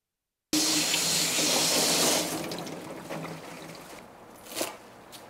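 Water running from a kitchen tap, starting suddenly and then fading after about two seconds, followed by a single knock of a knife on a wooden cutting board.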